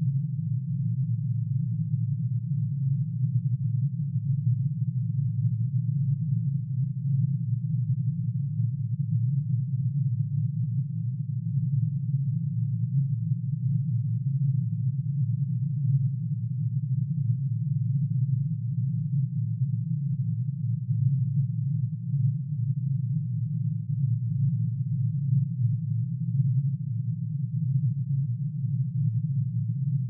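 Synthesised sound of curium's atomic emission spectrum: a sine tone for each spectral line, pitch-shifted into hearing range and summed into one steady low drone. The many close tones beat against each other, giving it a fast, uneven flutter.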